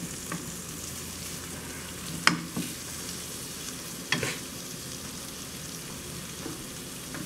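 Shrimp sizzling steadily in a hot skillet while a wooden spoon stirs them, with a few sharp knocks of the spoon against the pan, the loudest about two seconds in and again about four seconds in.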